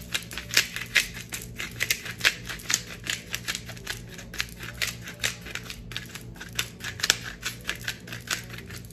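A hand-twisted pepper grinder cracking black peppercorns: a fast run of crunching clicks, several a second, as the mill is turned back and forth.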